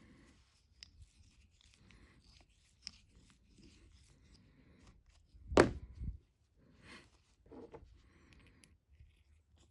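Hand deburring tool scraping faintly at the end of a small turned metal part, shaving off the pip left from parting off, with light handling sounds. A single louder thump a little past halfway.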